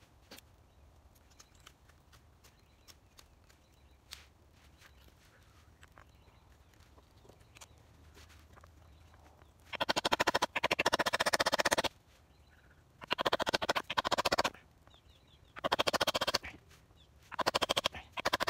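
Green-wood handle being twisted in the steel eye of a hatchet head, creaking and grating in four bursts of one to two seconds each as the wood is worked to a fit. Before that, only faint scattered clicks.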